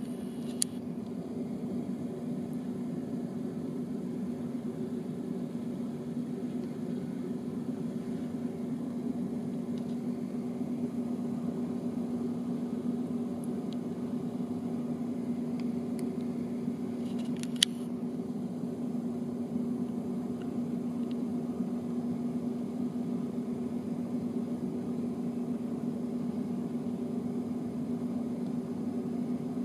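Steady low machine hum holding one constant pitch, with two brief sharp clicks, one just after the start and one a little past halfway.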